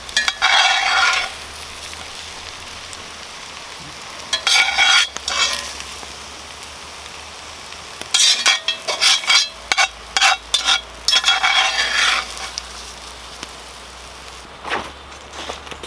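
Oil sizzling in a cast-iron Dutch oven over campfire coals, broken by several bursts of a utensil scraping and stirring in the pot as the fried pieces are lifted out.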